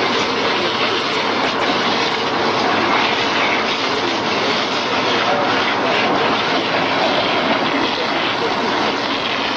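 A heavy vehicle engine running loudly and steadily.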